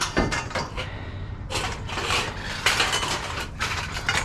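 Scrap metal clanking and rattling as pieces are shifted and pulled about in a dumpster: a run of sharp, irregular metal clanks.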